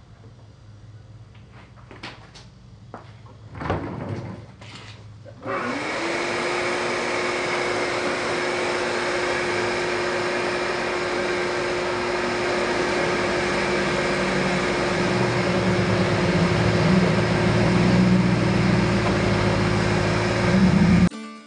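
Vacuum cleaner switched on about five seconds in: its motor whine climbs quickly to a steady pitch and runs with a loud rush of air, then stops abruptly near the end. Before it starts, a few clicks and knocks of handling.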